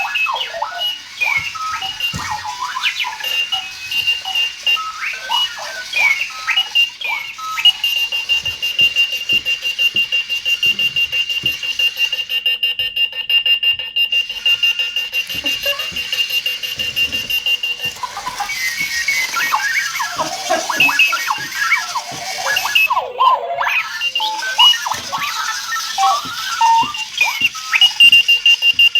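Clocky alarm clock going off: a jumble of electronic chirps and warbling beeps that glide up and down in pitch. A long steady high beep holds for about ten seconds from roughly a quarter of the way in, and comes back near the end.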